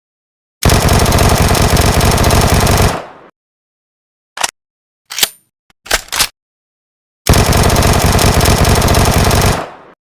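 Kriss Vector submachine gun firing two full-auto bursts, each about two and a half seconds long, with a few short clicks in the gap between them.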